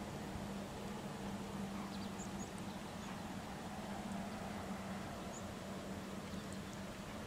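Steady outdoor background noise with a constant low hum, and a few faint, short, high chirps of distant small birds scattered through it.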